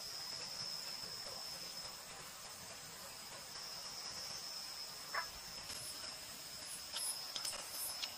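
Crickets chirping in a steady, high-pitched night chorus, with a single soft knock about five seconds in and a few faint ticks near the end.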